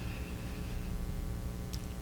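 A pause in speech filled with a steady low electrical hum and faint room tone, with one small click near the end.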